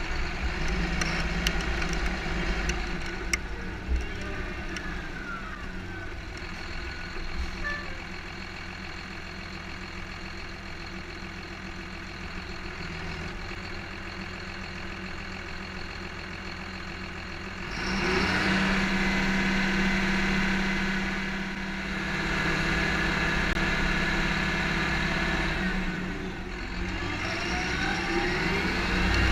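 John Deere 7530 Premium tractor's six-cylinder turbo diesel heard at its exhaust stack, running steadily at moderate level. About two-thirds of the way in it suddenly gets louder as the engine pulls harder, eases off briefly twice, and climbs in pitch again near the end.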